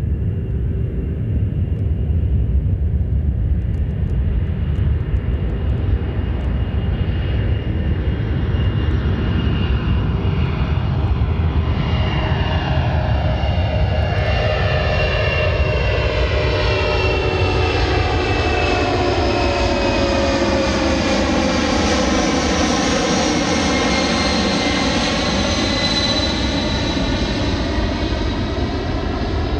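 C-17 Globemaster III taking off and climbing out on its four turbofan engines at takeoff thrust: a steady, loud, deep rumble with a jet hiss. From about halfway through, the sound grows brighter and its tones sweep down and back up as the aircraft climbs past.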